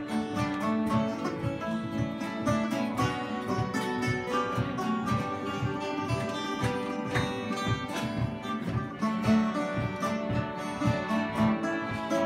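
Irish traditional session music: fiddles playing a lively tune over a steadily strummed acoustic guitar.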